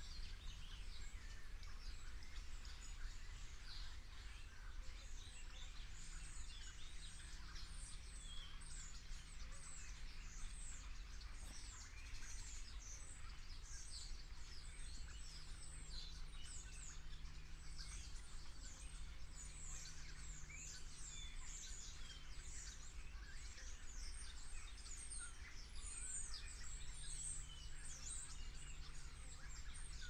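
A flock of small birds chirping and twittering together in a dense, continuous chorus of quick, high, down-slurred notes, over a low steady rumble.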